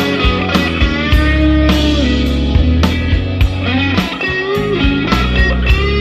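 Rock music without vocals: electric guitar playing bending notes over a steady bass line and a regular drum beat.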